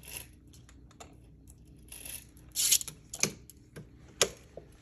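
Scattered light clicks and rustling, with a louder rustle or scrape a little past halfway and a couple of sharp clicks after it.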